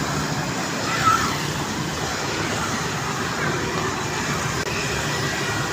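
Steady roadside traffic noise: the even rumble and hiss of vehicles running on the road.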